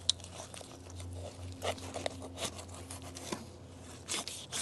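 Straight-bladed knife cutting a sheepshead fillet free around the rib cage on a plastic cutting board: soft tearing and scraping with scattered small clicks.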